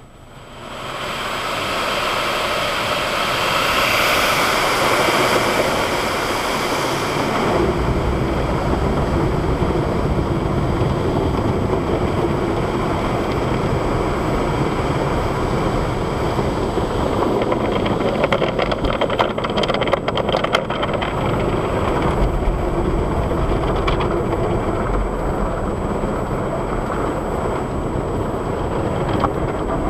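Automatic tunnel car wash heard from inside the car: water spray and brushes and cloth strips scrubbing over the windshield and body, a loud steady rushing and churning. It swells suddenly about a second in and takes on a heavier low rumble after several seconds, with a stretch of quick slapping knocks past the halfway point.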